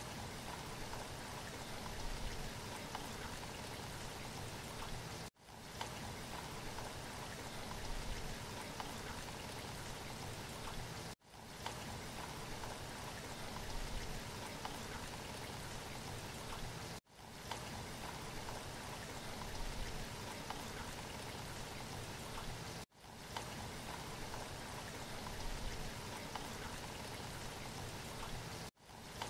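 Steady rain-like hiss, a short sound clip looped over and over: it repeats about every six seconds, with a brief gap before each repeat.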